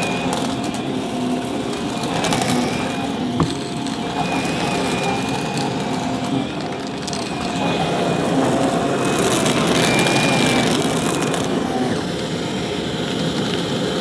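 Shark Navigator upright vacuum running over carpet with its brushroll spinning: a steady motor whine over a rushing, crackly suction noise, with one sharp click about three seconds in.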